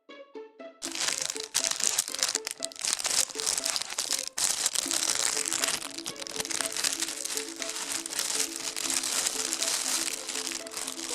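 A crinkly bag rustling and crackling loudly and without a break as cats play with it, starting about a second in, over background music with a plucked melody.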